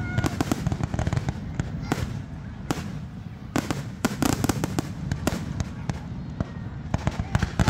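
Fireworks going off: a quick run of sharp pops and bangs over a steady low rumble. The bangs come thick at first, thin out for a couple of seconds, then build again near the end.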